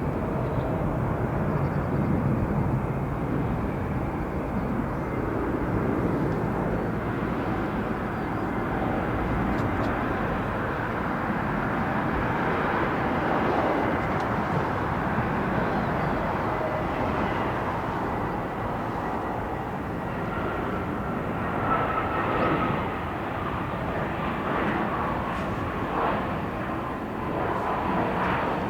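Jet aircraft engines running in a steady roar as a plane passes, with a whine that falls slowly in pitch in the last several seconds.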